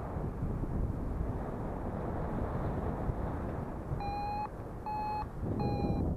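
Steady wind rushing over the microphone in paraglider flight. In the last two seconds a harness-mounted variometer gives three short beeps of the same pitch, the intermittent tone a vario sounds in rising air.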